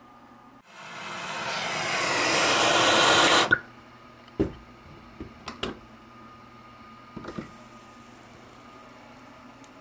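Hydrogen-oxygen torch flame hissing and growing louder for about three seconds, then cutting off with a sharp pop. A few light metallic knocks and clinks follow as the red-hot nickel ball is gripped with pliers.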